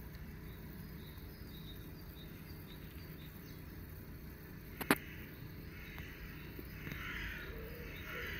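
Crows cawing in the distance, with a couple of harsh caws near the end, over a low steady outdoor hum. A single sharp click about five seconds in.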